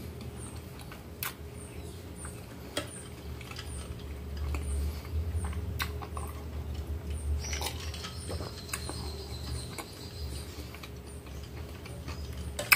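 Mouth-close sounds of someone sipping a drink from a plastic mug: a low swell of gulping around the middle, with a few small clicks of the mug. A faint high chirp repeats about twice a second underneath.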